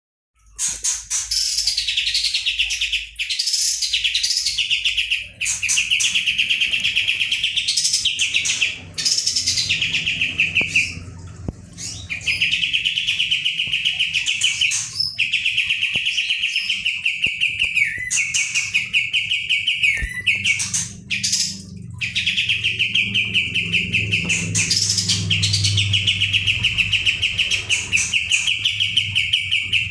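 Kapas tembak songbird singing long, rapid rolling trills, each a few seconds long and broken by short pauses: the fast "ngebren" roll prized in this bird.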